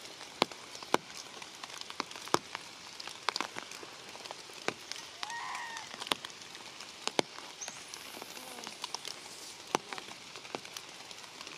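Steady rain falling, with many sharp drop ticks landing close by at irregular intervals. One short pitched call about five and a half seconds in.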